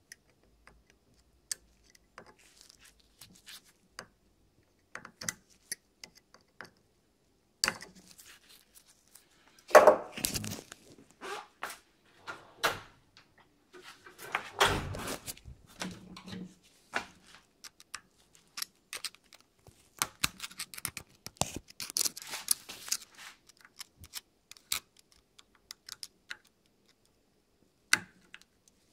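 A metal pick clicks and scrapes against a NuVinci CVT bicycle hub held in a vise while prying at a retainer clip on its axle. Scattered small clicks, with a loud knock about ten seconds in and another burst of scraping around fifteen seconds in.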